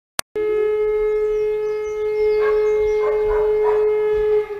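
A warning siren sounding one steady tone with overtones. It starts suddenly just after a brief click, and near the end it drops in level and begins to sink in pitch as it winds down.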